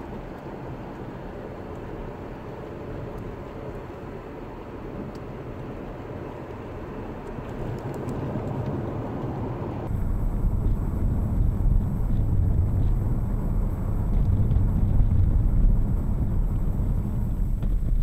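Chevrolet Camaro driving, heard inside the cabin as a steady mix of engine and tyre noise. About ten seconds in the sound cuts to the dash cam's recording, which is louder and dominated by a deep rumble.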